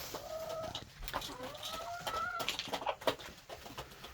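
A chicken giving two drawn-out calls, the second longer and rising slightly, with scattered short clicks of scratching and pecking around it.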